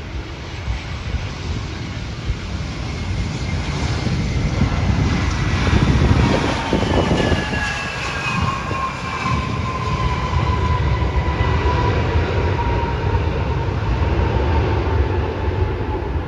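Airbus A320 jet landing: a loud roar builds to a peak about six seconds in as it passes, with whining tones that fall in pitch. The roar carries on steadily after touchdown as the airliner rolls down the runway.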